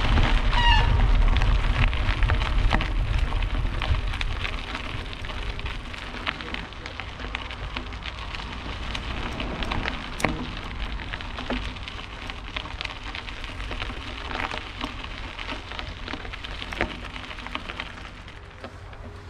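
Mountain bike rolling along a forest trail: tyre noise over dirt with many small clicks and rattles from the bike. Wind rumble on the microphone is heavy at first and eases after a few seconds.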